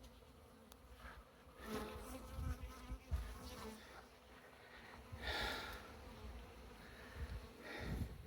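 Honeybees from an opened wall colony buzzing steadily, with a few short rustles and bumps as comb is handled.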